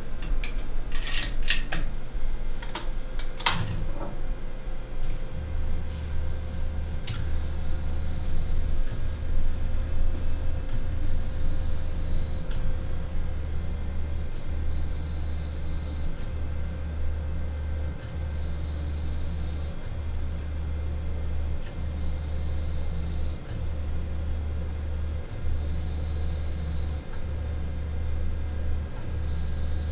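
A few sharp clicks and knocks. From about five seconds in, an OFDA optical fibre-diameter analyser gives a steady low motor hum, broken by a brief gap about every two seconds. This is its motorised stage stepping the slide of wool fibre snippets from spot to spot as it measures fibre diameters.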